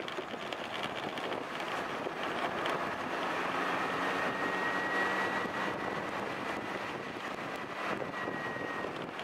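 Yamaha Axis 90 scooter being ridden, with steady wind rush on the microphone over a faint engine note. A thin, steady high whine joins in a few seconds in and fades just before the end.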